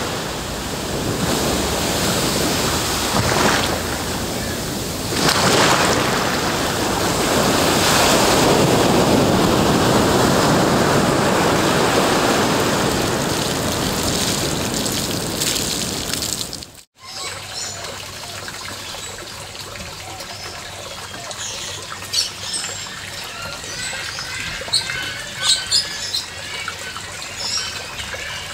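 Ocean surf washing in, swelling and easing, until an abrupt cut about 17 seconds in. Then a quieter trickle of running water with birds chirping.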